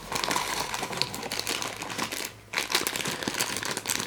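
Packaging of a mystery vinyl figure being opened by hand: dense, irregular crinkling and crackling, with a short pause about halfway through.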